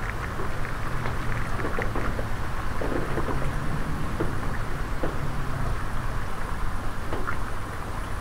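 Rain falling into a puddle, with scattered individual drops splashing over a steady low rumble of wind.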